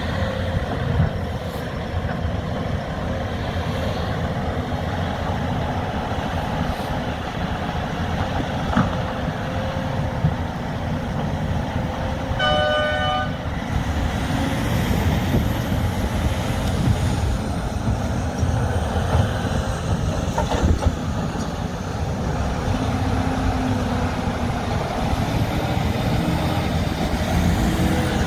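Large diesel engines of a Cat 390F L excavator and Cat 772G haul trucks running steadily while loading blasted limestone. A short horn toot sounds once about halfway through, and near the end a haul truck moves off close by.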